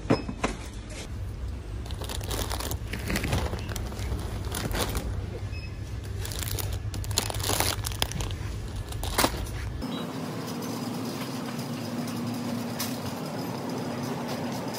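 Plastic snack packaging crinkling and rustling, with scattered sharp clicks, as groceries are handled over a wire shopping cart. About ten seconds in the sound cuts to a steadier hum.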